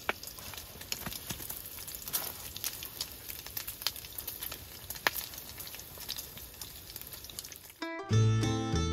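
Bacon sizzling and popping in a frying pan, a steady hiss with scattered sharp crackles. Near the end it cuts off abruptly and string-band music begins.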